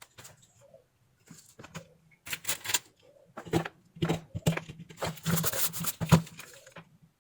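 Hand work at an electronics bench: irregular clicks, taps and short scraping noises from tools and parts being handled, busier and louder in the second half. This is the kind of handling heard while replacing components on a switch-mode power supply board.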